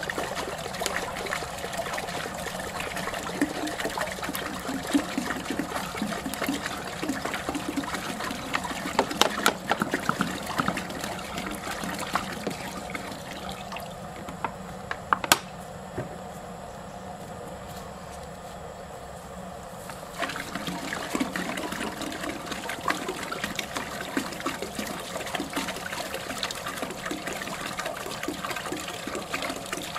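Water pouring from a large plastic bottle into a metal cooking pot, a steady splashing stream. About halfway through, the stream stops for several seconds while a fresh bottle is uncapped, with one sharp click, then the pouring resumes.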